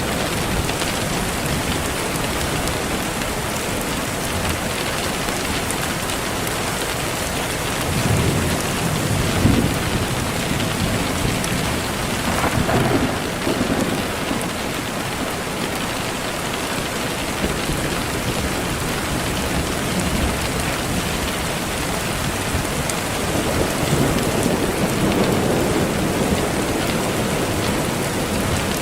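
Steady rain falling, a dense even hiss, with low rolls of thunder swelling up a few times.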